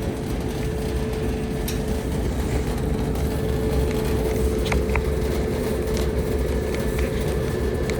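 Roper electric clothes dryer running on a test cycle after a timer repair: a steady rumble of the motor and turning drum with a constant hum, and a few light clicks.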